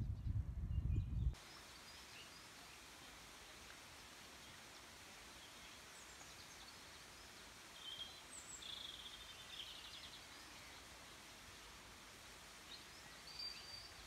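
Wind buffeting the microphone for about the first second, cutting off suddenly. Then a faint steady woodland background with a few short bird calls and a trill about eight to nine and a half seconds in, and another call near the end.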